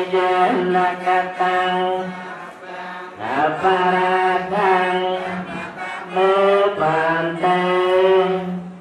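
Theravada Buddhist monks chanting together in unison on a steady reciting pitch, the lead voice amplified through a microphone, with short pauses for breath about three and seven seconds in. The chant stops just before the end.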